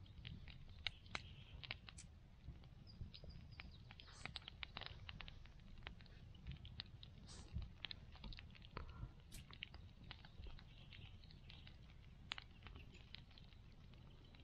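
Faint, irregular small clicks and rustles of hands threading a leader onto a homemade bottle-and-fishing-line bottom rig, over a low rumble.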